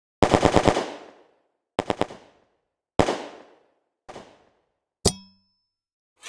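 Gunfire sound effects played one after another: a short automatic burst of about six rapid shots, then a three-round burst, then two single shots, each trailing off in an echoing tail. A sharp click with a brief ring comes about five seconds in.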